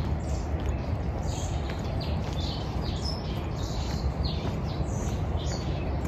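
Several birds chirping in the street trees, many short high calls in quick succession, over a steady low outdoor rumble.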